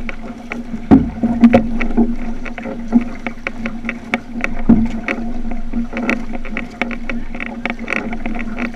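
Water splashing and slapping along the hull of an outrigger canoe under way, with irregular sharp splashes from the paddles biting the water and a steady low hum underneath.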